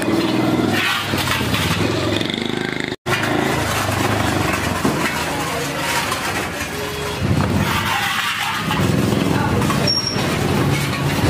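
Street noise: motor traffic running steadily, with indistinct voices. The sound cuts out for a moment about three seconds in.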